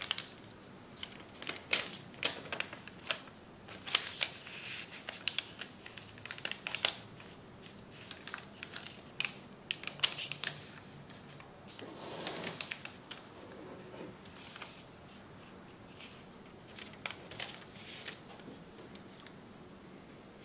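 A 25 cm square of origami paper handled and folded by hand: crinkling and rustling, with sharp crackles as creases are pressed in and the sheet is opened out. The crackles come thick and fast for most of the stretch, then thin out over the last few seconds.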